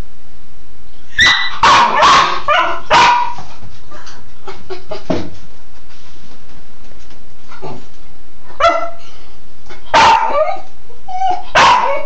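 Cairn terrier barking and yipping in short excited bursts: a quick run of barks a second or so in, then single barks spaced out in the second half.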